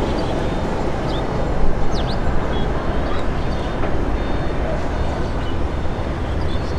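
Steady outdoor rumble with no clear pitch, with a few faint high chirps about two seconds in.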